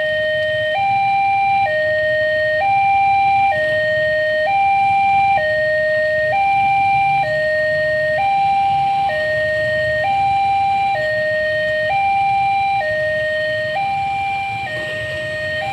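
Two-tone electronic siren alternating steadily between a high and a low note, each held just under a second, in an even hi-lo pattern.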